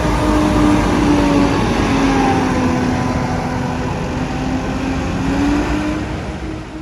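Volvo B9TL double-decker bus's diesel engine running as the bus pulls away. Its steady drone dips slightly in pitch, rises again and grows fainter near the end.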